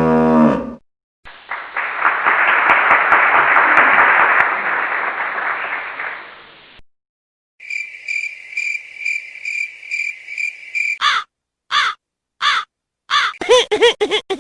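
A run of separate comedy sound effects. First comes about five seconds of dense, even noise. Then a high tone pulses about five times a second, and the run ends with a string of short, harsh caw calls that rise and fall.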